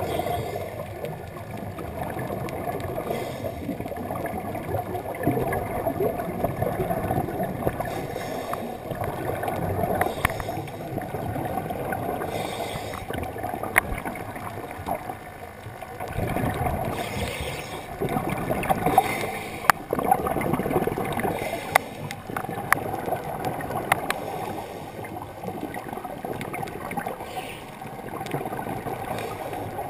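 Muffled underwater sound through a GoPro's waterproof housing: a diver's exhaled air bubbles gurgling in swelling bursts, with scattered sharp clicks.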